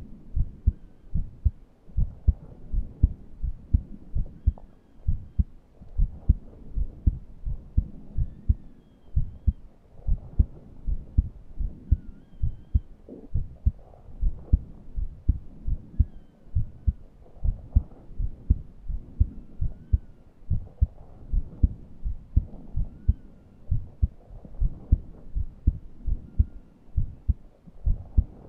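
A person's heartbeat heard through the chest, a steady run of low paired thumps, with a faint high-pitched wheeze rising and falling on each breath about every three to four seconds. The wheeze comes with laboured breathing, too short of breath to breathe deeply.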